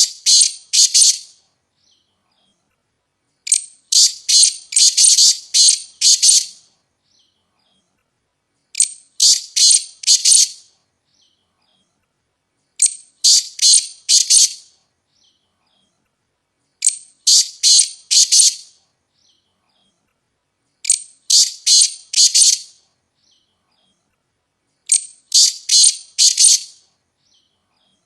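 Black francolin (black partridge) calling: a harsh, grating phrase of a few quick notes, opening on a short higher note, repeated about every four seconds with silence between.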